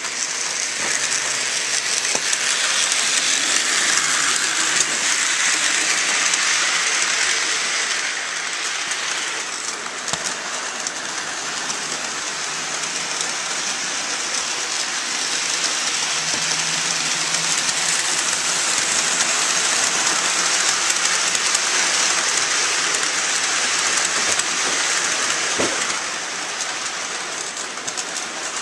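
HO-scale model train running on its track: the double-headed Bachmann locomotives' motors and the cars' wheels on the rails make a steady, dense rushing clatter.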